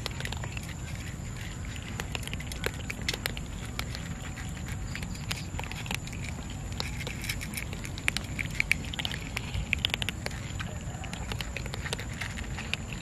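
A group of cats crunching dry kibble from a steel bowl: a dense, irregular run of small crunches and clicks, loudest in a cluster about eight to ten seconds in.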